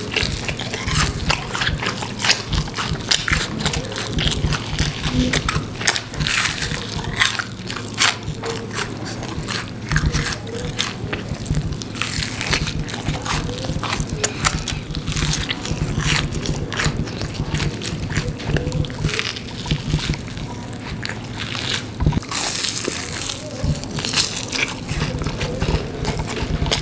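Crunching and chewing of cheese-filled deep-fried breaded pork cutlet (cheese donkatsu): many crisp crunches of the fried crust in irregular succession.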